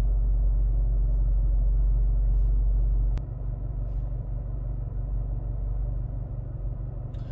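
Hyundai Veloster N's turbocharged 2.0-litre four-cylinder idling, heard as a steady low rumble inside the cabin. A click about three seconds in, after which the rumble is quieter.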